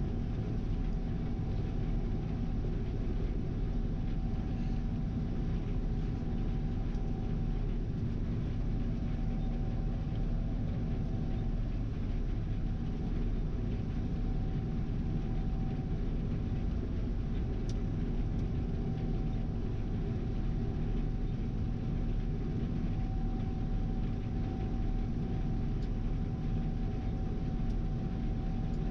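Gleaner R72 combine running steadily while harvesting soybeans: a constant machine drone with a steady whine over it.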